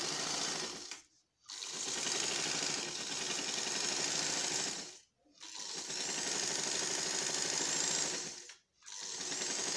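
Electric sewing machine with a bolt-on belt-drive motor, running steadily in bursts of a few seconds and stopping briefly three times in between. This is a test run after the motor belt was tightened, and the belt now drives the machine without slipping.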